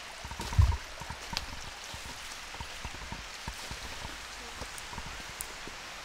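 Mountain stream flowing steadily, with small crackles and ticks of footsteps on twigs and leaf litter. A single low thump comes about half a second in.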